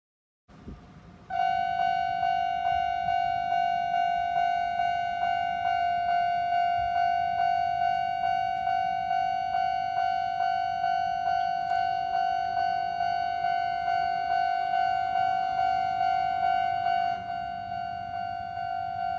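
Railway level crossing warning bell ringing its repeating tone in an even rhythm of about two and a half strokes a second, starting just over a second in and getting quieter near the end.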